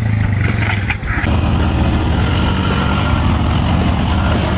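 Off-road vehicle engines: an ATV engine for the first second, then, after a cut, a truck engine running hard and steady as it climbs a steep dirt hill.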